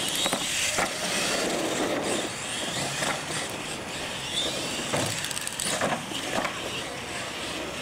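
Radio-controlled monster trucks racing on concrete: motors and tyres running steadily, with a few sharp knocks as the trucks hit and land off the wooden ramps.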